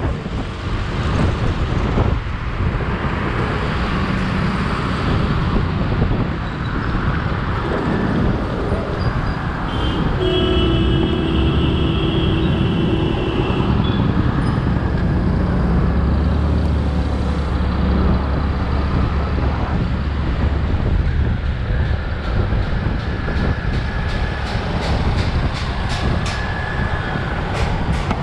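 Road and traffic noise from a moving scooter, with wind rushing over the microphone. About ten seconds in, a vehicle horn sounds steadily for about three seconds.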